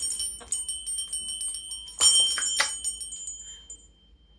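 Small metal bells jingling and ringing, shaken hard at the start and again about two seconds in, the ringing dying away toward the end.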